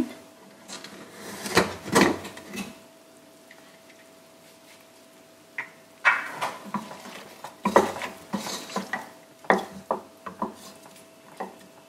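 Stainless steel pressure cooker lid being unlocked and lifted off with a few metal knocks and clatters, then a wooden spatula knocking and scraping against the steel pot while stirring pieces of cooked mutton.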